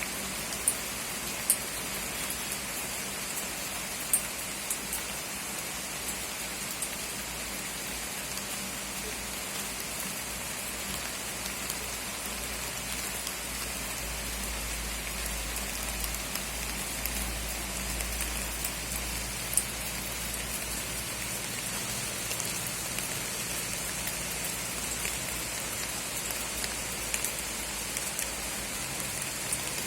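Steady rain hissing, with scattered sharp ticks of drops striking close by. A low rumble comes in for several seconds near the middle.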